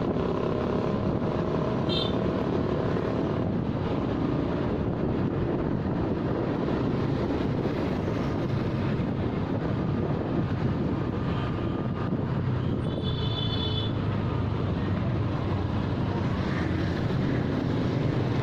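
Motorcycle engine running steadily while riding, mixed with wind rush and the sound of surrounding street traffic. A short high beep comes about two seconds in, and a slightly longer one near the thirteen-second mark.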